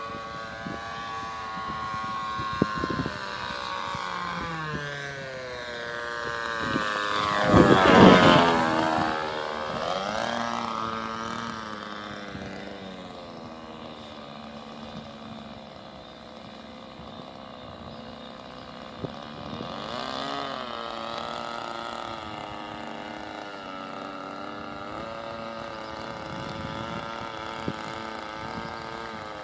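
Radio-controlled model aeroplane flying overhead, its small engine buzzing steadily as the pitch rises and falls. It passes closest about eight seconds in, loudest there, with the pitch dropping sharply as it goes by, and makes a second, weaker pass near twenty seconds.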